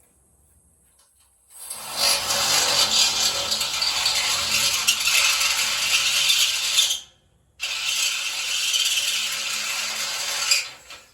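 Power drill running a step bit through the steel truck frame to enlarge a hole, in two long runs with a short stop between them.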